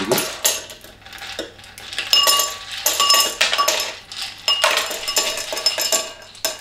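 Ice cubes dropped one at a time with metal tongs into a glass tumbler, with the tongs also knocking the glass ice bucket: a string of irregular clinks, each with a brief glassy ring.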